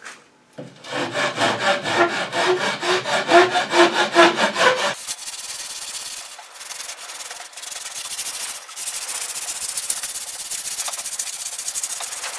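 Large farrier's rasp scraped back and forth over a wooden seat slat in quick, rhythmic strokes, about three a second. About five seconds in, this gives way to sandpaper rubbed steadily by hand along the wooden stringers of a canoe frame, a fast, even hiss.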